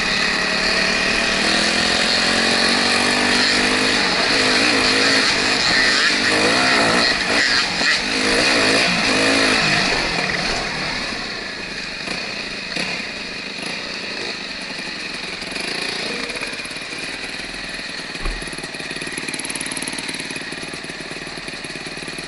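Enduro dirt bike engine running on a trail, its pitch rising and falling through the first half, then settling quieter after about ten seconds. A single sharp knock sounds near the end.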